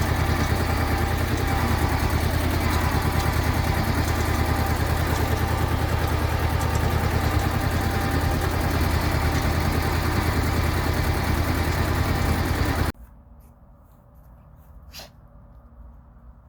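Engine running steadily with an even low pulsing; it stops suddenly about 13 seconds in, leaving quiet with a single click.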